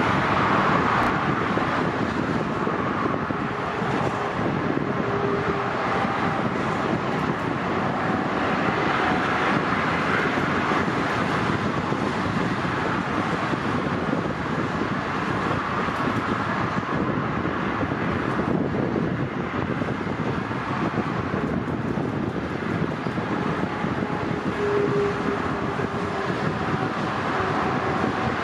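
Steady roar of motorway traffic mixed with a Boeing 777-300's jet engines at taxi power.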